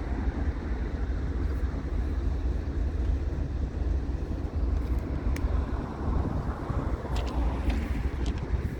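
Steady low rumble of freight trains at work in a rail yard, with a few faint light clicks about five and seven seconds in.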